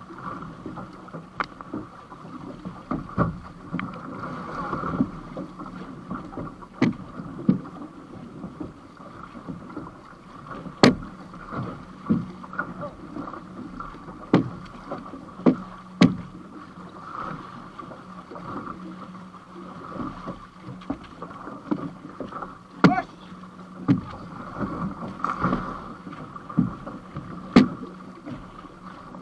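Water sloshing and slapping against an outrigger canoe's hull and float as it is paddled through chop, with sharp irregular knocks and splashes every second or two.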